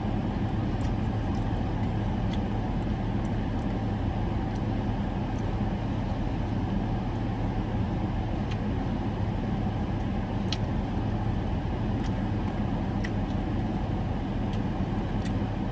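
Steady low hum of a car idling, heard inside its cabin, with a few faint clicks of chewing and eating over it.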